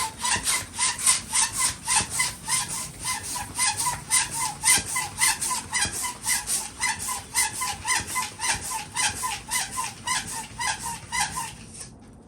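Balloon being inflated with a hand pump: quick, even pump strokes, about three a second, each a short airy rush with a little squeak, stopping near the end.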